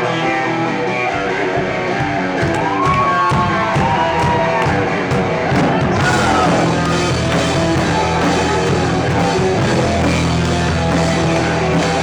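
A live rock band playing an instrumental passage: guitar and drums, with a lead line of sliding notes early on, and the full band with bass coming in fuller about six seconds in.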